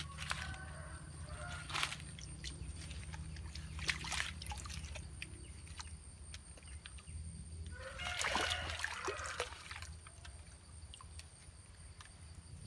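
Splashing and sloshing in a shallow stream, with short splashes about two and four seconds in and a longer, louder burst of splashing about eight seconds in as a hooked catfish is pulled thrashing from the water.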